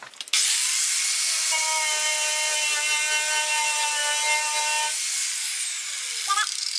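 Angle grinder with a wire wheel starting up and brushing at the wheelhouse sheet metal: a rasping hiss with a steady whine over it. About five seconds in it is switched off and winds down with a falling whine. The wire wheel is making little headway against the old undercoating.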